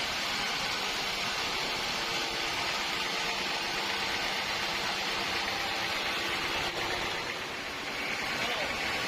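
Sawmill machinery running with a steady, even noise, dipping briefly a little over seven seconds in.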